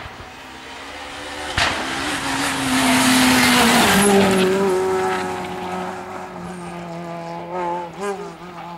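Rally car passing close at speed, engine at high revs with loud tyre noise, the note dropping in pitch as it goes by about four seconds in. It then pulls away with two quick rises in the engine note near the end.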